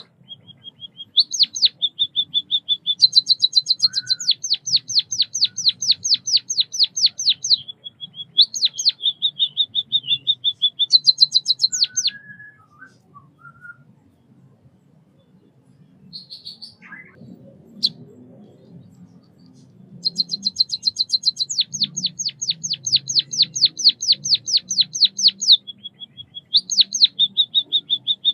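White-headed munia singing: runs of quick, high-pitched notes, about four a second, broken by short thin held notes. About halfway through the song stops for several seconds, leaving only a few soft calls and a single click, then starts again.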